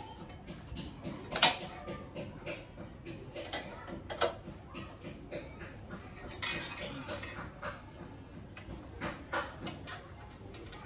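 Hand tool clicking and clinking against a motorcycle's metal top rack and its mounting bolts as the rack is tightened down: irregular light metal clicks, with a louder clink about one and a half seconds in and another about four seconds in, and a short rasping stretch around six seconds in.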